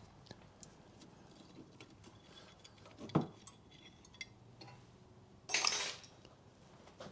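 Brake pads and caliper parts being handled, with light metal clinks and taps. There is a sharp knock about three seconds in, then a half-second metallic scrape with a ringing edge near six seconds.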